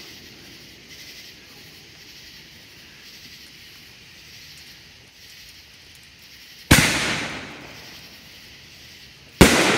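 Consumer 6-inch canister ring shell launched from its mortar tube with a sharp bang about two-thirds in, then the shell breaking overhead with a louder bang near the end. Each bang dies away in an echoing tail.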